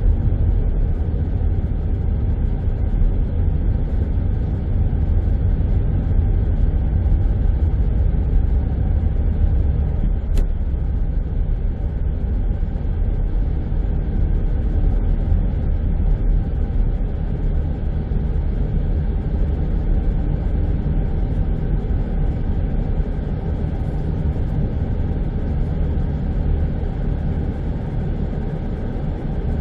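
Steady low rumble of a moving car: engine, tyre and wind noise blended together, unchanging throughout.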